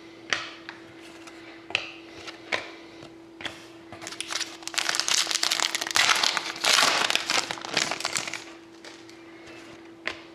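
Foil wrapper of a hockey card pack being torn open and crinkled by hand for about four seconds in the middle, after a few light clicks of cards being handled.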